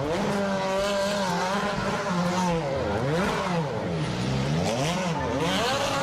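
Car engine revving sound, held steady at first, then dipping and rising in pitch about three times.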